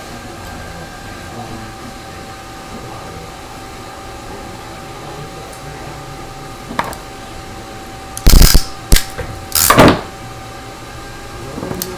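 Steady hum with a thin high whine. A small click comes about seven seconds in, then three loud, short bursts of handling noise between about eight and ten seconds in, from an Ethernet cable and its hand tools being worked close to the microphone.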